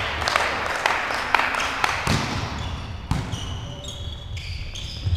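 A volleyball struck and bounced in a large echoing sports hall: a series of sharp smacks about every half second, then a few more spaced hits as play starts. Short high squeaks, typical of shoes on the court floor, come in the second half.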